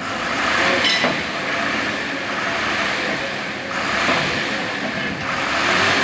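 A vehicle engine running: a steady, noisy hum with no distinct knocks, swelling louder about half a second in and again a little past the middle.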